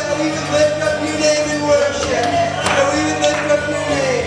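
Live worship band playing held chords with a voice singing over them; the sung line slides down near the end.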